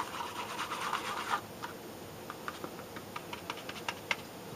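Paintbrush stirring and scraping watered milk paint around a foam bowl: a dense, fine scratching for about the first second and a half, then only scattered light taps and clicks.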